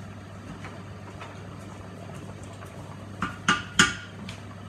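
A large pan of rice boiling on the hob under a steady low hum. A little past three seconds in come three sharp clinks of kitchenware, the last the loudest.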